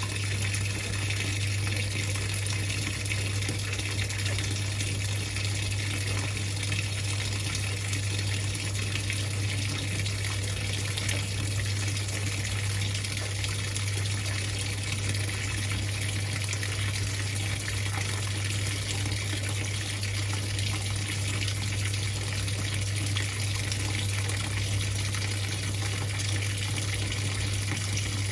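Whirlpool 3RLSQ8033SWD top-loading washing machine taking in water, a steady gush of water into the tub over a constant low hum.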